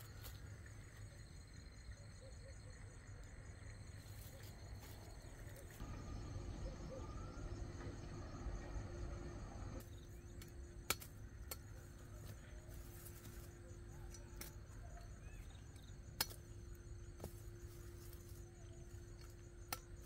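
A few sharp single knocks of a knife chopping cassava roots off the stem, three in the second half, over a faint low outdoor rumble.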